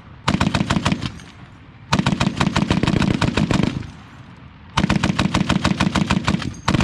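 M2 .50-calibre heavy machine gun firing in bursts of automatic fire: a short burst, then two longer bursts of about two seconds each, with short pauses between.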